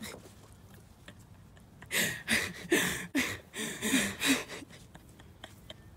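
A person's short breathy vocal sounds, like gasps or panting, about three a second, starting about two seconds in after a quiet start and fading out near the end.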